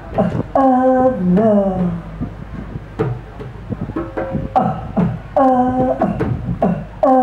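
A woman's voice chanting a short sung phrase that repeats about every three seconds, with sharp clicks and taps between the phrases.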